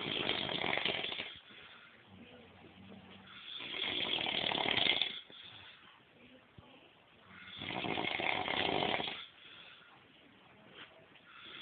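A man snoring in sleep: a loud snore about every four seconds, each lasting about one and a half seconds, with quieter breathing in between.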